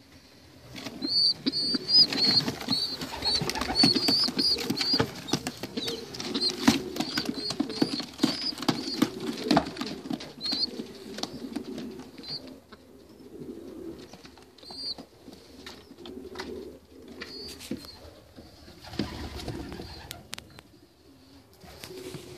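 Young racing pigeons squeaking in a loft: a quick run of short, high peeps for the first ten seconds or so, then only a few, over low pigeon cooing, with rustling and wing flaps.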